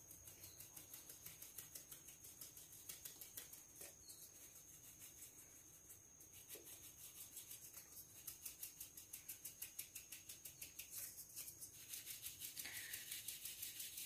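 Faint, rhythmic rasping of a metal-rimmed mesh sieve being shaken back and forth to sift dry flour and cocoa powder, about four strokes a second, growing a little louder about eight seconds in.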